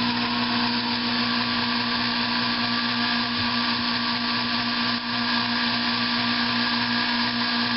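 Sherline model 4000 mini metal lathe running: its small motor comes up to speed right at the start, then holds a steady whine and hum while the boring bit is fed into the workpiece for a taper-turning pass.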